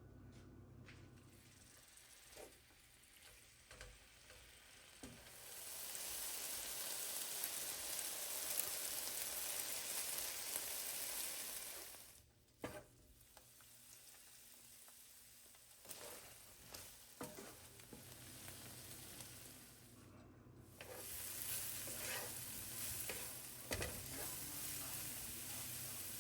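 Food sizzling in a frying pan, with scattered clicks and knocks of stirring. The sizzle is loudest in two long stretches, the first ending sharply about halfway through and the second starting about two-thirds in.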